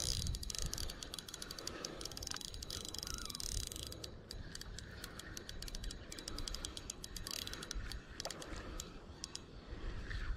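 Spinning reel being cranked to retrieve line, its gears ticking in quick runs of clicks that pause and start again.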